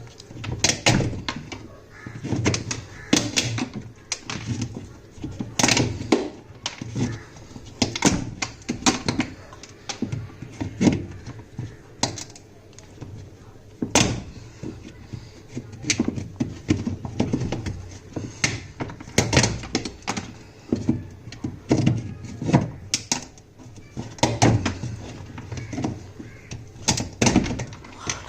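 Repeated irregular knocks and clunks as the pulley wheel is broken off a washing machine gearbox shaft, whose fixing screw has rusted in.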